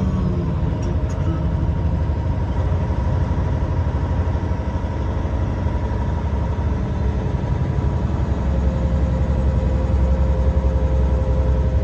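Semi truck's diesel engine and road noise heard from the cab while driving: a steady low rumble that deepens and grows a little louder about eight seconds in.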